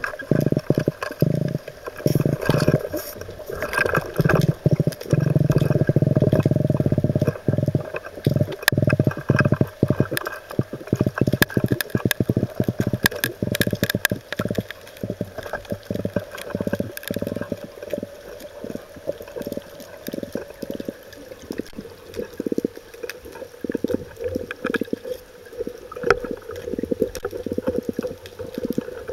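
Muffled underwater noise heard through a camera's waterproof housing: a low rumble of water with a dense, irregular run of clicks and knocks, heaviest in the first eight seconds.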